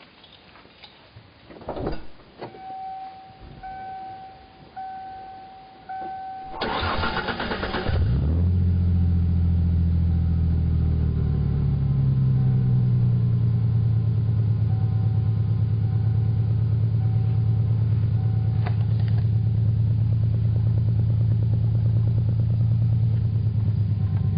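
Ford Mustang V6 with a MAC cat-back exhaust being started: a chime beeps about once a second, the starter cranks for about a second and a half, then the engine catches and settles into a loud, deep, smooth idle, the fast idle dropping a few seconds after the start.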